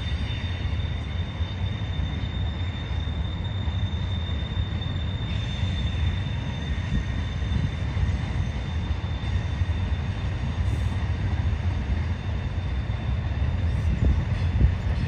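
Intermodal freight train of container well cars rolling past with a steady low rumble of wheels on rail. A thin, high wheel squeal rides over it in the first half and fades. A couple of short knocks come near the end.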